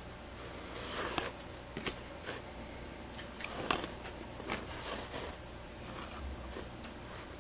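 Upper Deck Power Play hockey cards being flipped through by hand: a string of short slides and flicks of card against card, the sharpest about three and a half seconds in, over a low steady hum.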